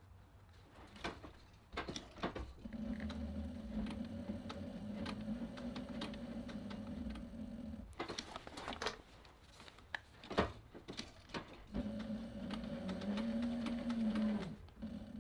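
Cobra Class 3 industrial leather sewing machine stitching through heavy vegetable-tanned leather: a steady motor hum in two runs, about five seconds and then about three seconds, with clicks and handling knocks between as the belt is turned and repositioned. In the second run the machine speeds up and then slows.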